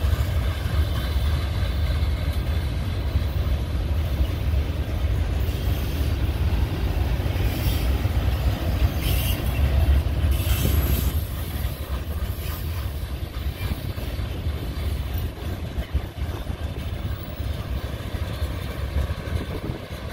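Freight train of tank and steel-coil cars rolling past: a steady, loud rumble of wheels on rail, with a few brief high-pitched squeals a little before halfway. It eases off about halfway through as the end of the train goes by.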